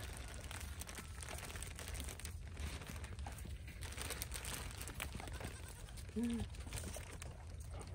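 Thin plastic bag crinkling and crackling as it is handled and shaken, over a low steady rumble, with one short voice-like sound about six seconds in.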